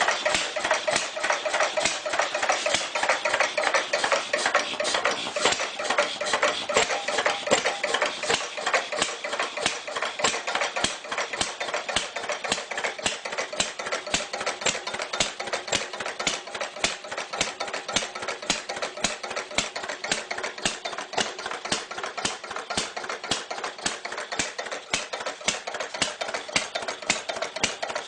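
Clunky old engine idling with a rapid, even clatter of mechanical knocks that run steadily throughout.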